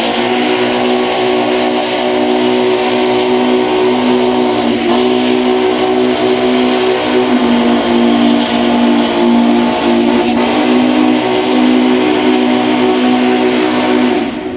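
A locomotive chime whistle held in one long, steady multi-note chord with a rushing hiss over it. It falters briefly twice and starts and stops abruptly.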